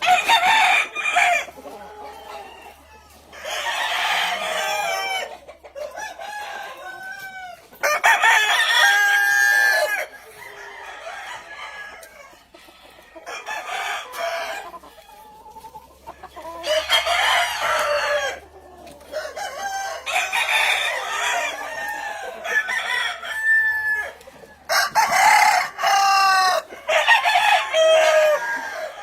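Several gamefowl roosters crowing in turn, about eight crows one to two seconds long spread through the stretch, with hens clucking more quietly in between.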